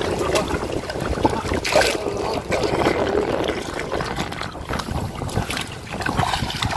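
Fish thrashing and splashing in the shallows as a cast net full of them is hauled in by hand, with a continuous run of irregular water splashes.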